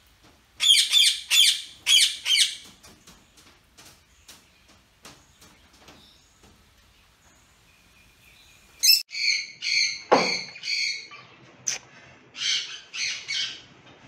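Ringneck parakeets calling with loud, harsh squawks in two bouts: four or five in quick succession in the first couple of seconds, then a longer series from about nine seconds in, with softer chirps between.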